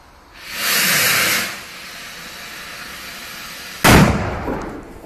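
Echo bomb firework on the ground. A loud hissing rush starts about half a second in and lasts about a second, then fizzes on more quietly. About four seconds in it goes off with a single sharp bang that rings away.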